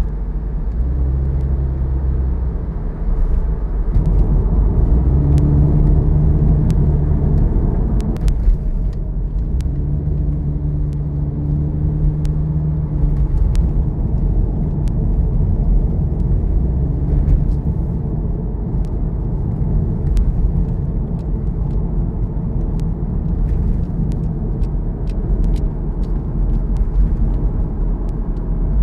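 Toyota 86's flat-four engine humming under steady tyre and road rumble, heard from inside the car while driving. The engine note comes up in steady spells of a few seconds and fades back into the rumble.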